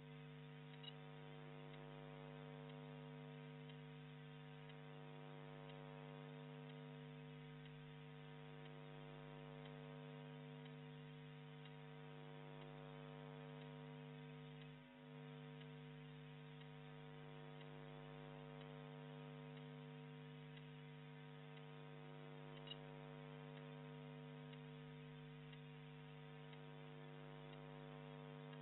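Faint, steady electrical mains hum with a buzzy stack of overtones, briefly dropping out about halfway, with two faint ticks.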